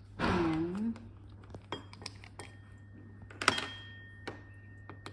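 Light clinks and taps of a small glass lacquer bottle, its cap and a mixing stick against a small ceramic dish and a plastic-covered tabletop, with one sharper knock about three and a half seconds in as the bottle is set down. A short murmur of voice comes near the start.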